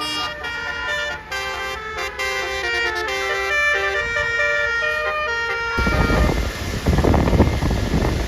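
Bus 'telolet' horn playing a stepping multi-note melody. About six seconds in it gives way abruptly to a loud, low rushing noise.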